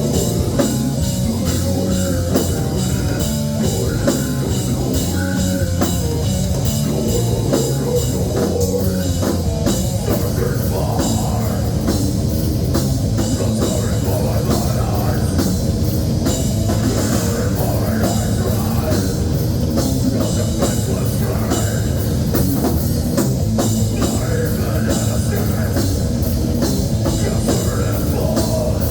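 Heavy metal band playing live: electric guitars over a busy drum kit, loud and unbroken.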